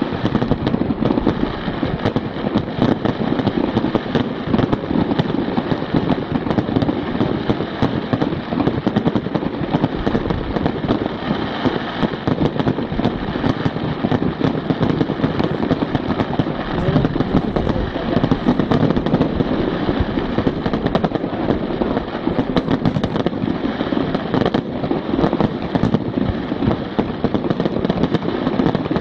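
Fireworks display: a dense, unbroken run of bangs, pops and crackles from shells bursting in quick succession.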